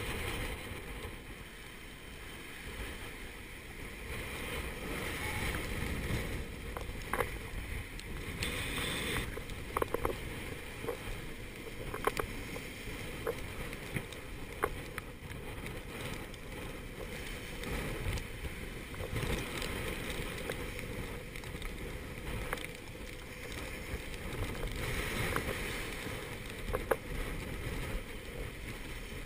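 Force 7 gale wind and breaking seas rushing past a small sailboat running downwind, swelling louder every few seconds as waves pass under the stern. Scattered short clicks and knocks sound through it.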